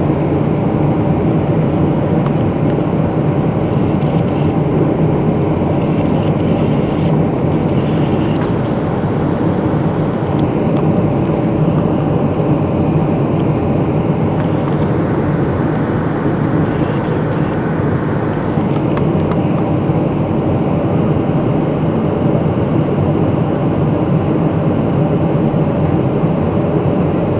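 Steady cabin noise of a Boeing 757-200 on its approach, heard from a window seat over the wing: a constant engine hum under an even rush of airflow.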